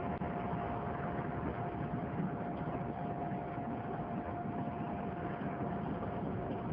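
Steady rumble of a running vehicle or machine, with a constant whine held on one pitch throughout.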